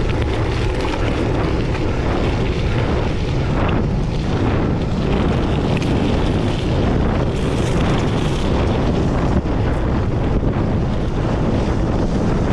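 Steady wind rushing over the microphone of a camera riding on a racing bicycle, with a few faint knocks from the bike.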